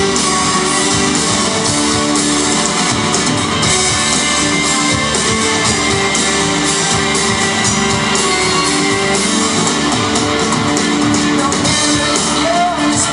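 Live band playing an instrumental passage on acoustic and electric guitars with a drum kit.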